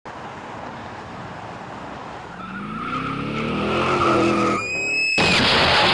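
Road noise inside a truck cab on a motorway, rising after about two seconds into a screech with a steady high tone, then a sudden loud burst of crashing noise about five seconds in.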